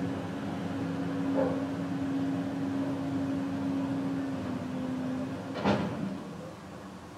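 Excavator's diesel engine running with a steady hum that drops slightly in pitch about two-thirds of the way through. A soft knock comes about a second and a half in, and one sharp metallic bang near the end as the machine works the road surface.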